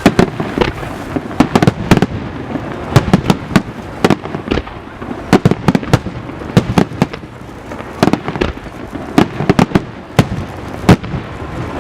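Fireworks display in a rapid, irregular barrage: dozens of sharp bangs, some clustered in quick volleys, others spaced a little apart.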